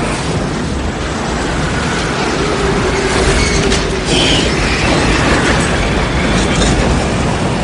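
Tornado sound effect: a loud, steady rushing roar with a deep rumble and a few sharp cracks about four seconds in.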